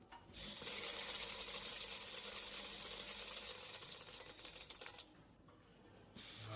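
HWP-500 counting and weighing packing machine running, with a dense rattle of small metal fasteners clinking through it. The rattle starts about half a second in, stops near five seconds, and starts again more faintly near the end.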